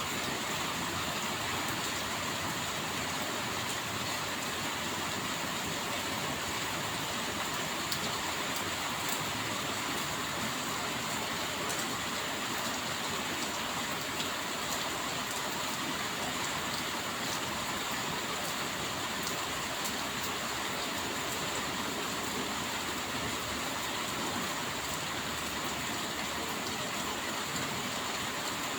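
Steady rain falling: a dense, even hiss with faint scattered drop ticks throughout.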